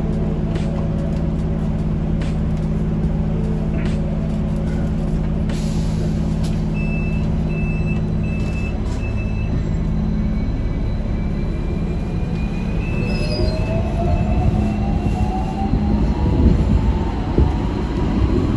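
Hong Kong double-decker tram standing, then pulling away. A steady low hum, then a run of five short beeps about seven seconds in. From about twelve seconds in, the traction motor whine rises in pitch and the rumble of the wheels on the rails grows louder as it gathers speed.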